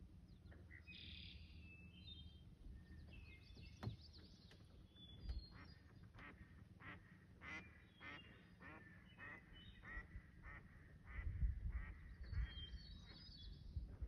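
A duck quacking over and over in a steady series, about two quacks a second, starting about five seconds in and running until near the end. Small birds chirp in the first few seconds, and there are low rumbles near the end.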